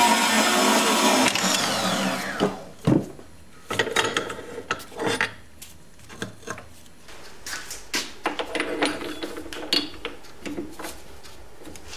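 Metal-cutting band saw running, then switched off about a second in, its motor winding down with a falling pitch. After that, scattered metal clanks and clicks as the cut steel piece and the saw's vise are handled.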